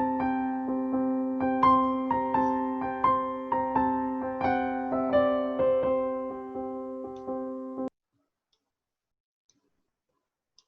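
Piano music: a melody of struck notes over a held chord, cutting off abruptly near the end.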